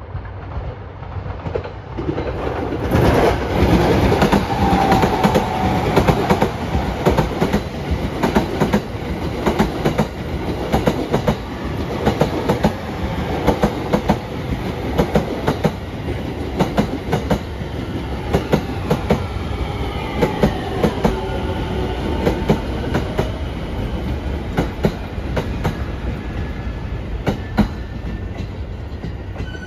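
Electric commuter train's wheels clacking over rail joints as it pulls slowly into a station. A rapid, rhythmic run of clacks begins about two seconds in. In the second half a whine falls in pitch as the train slows.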